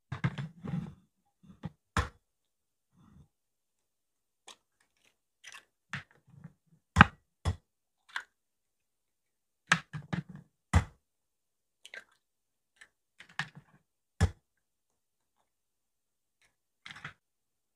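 Raw eggs being cracked one after another into a white bowl: sharp taps of eggshell against the rim and the crackle of shells breaking apart, in scattered clusters with pauses between.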